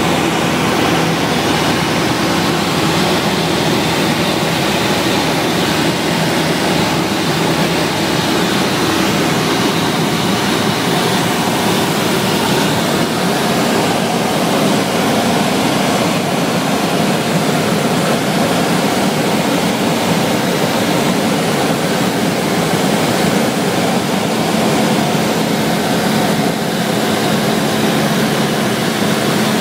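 Cabin noise of a Cessna 172SP in cruise: its four-cylinder Lycoming engine and propeller run steadily, with a constant hum of a few tones under a loud, even rush of air.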